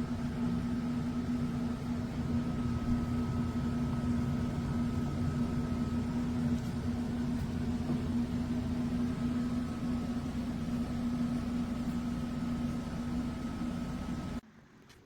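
Air fryer oven running: a steady fan whir over a low electrical hum, cutting off suddenly near the end.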